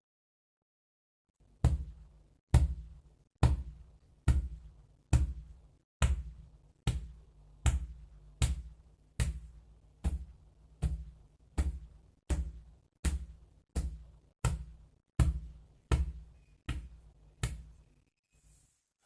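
A steady series of about twenty thuds, a little under one a second, from a hand patting on the body as a cough-relief massage. They start about a second and a half in and stop shortly before the end.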